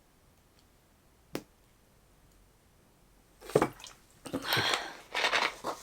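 One sharp click, then from about three and a half seconds a run of loud, noisy scrapes and rustles.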